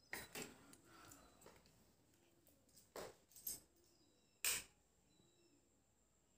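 Mostly near silence, broken by a few soft clicks and knocks of the phone being handled, the loudest about four and a half seconds in.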